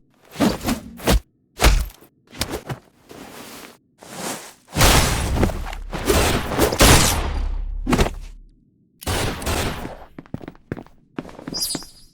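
Foley fight sound effects: a run of sharp hits and thuds, then a long, heavy, rumbling impact from about five seconds in to nearly nine, then more quick clusters of hits.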